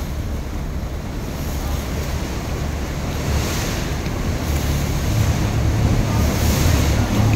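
River cruise boat under way: a steady low engine hum with water rushing along the hull and wind buffeting the microphone, the gusts growing louder in the second half.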